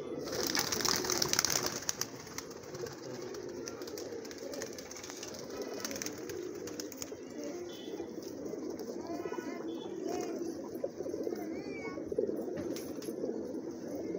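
A large flock of domestic pigeons cooing together, many overlapping low coos without a break. In the first couple of seconds there is a louder rustling burst.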